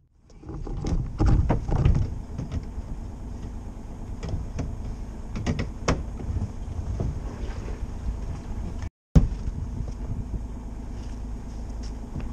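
Steady low rumble on a sailing yacht's deck, with scattered knocks and clicks from footsteps and line handling, the loudest cluster about a second in. The sound cuts out briefly about three-quarters of the way through.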